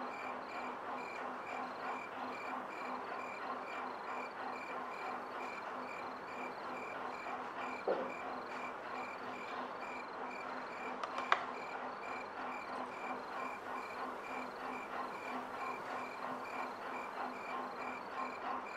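Steady, rhythmic insect-like chirping, pulsing about three times a second without a break. A short knock comes about eight seconds in and a sharp click about eleven seconds in.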